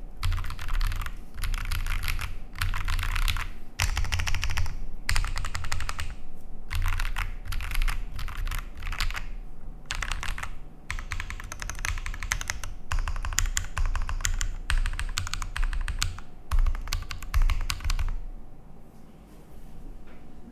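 Fast typing on a Bear 65 gasket-mount mechanical keyboard with lubed Holy Panda tactile switches on a polycarbonate plate with Poron foam: dense runs of keystrokes in bursts of a second or few with short pauses between them. The typing stops about 18 seconds in.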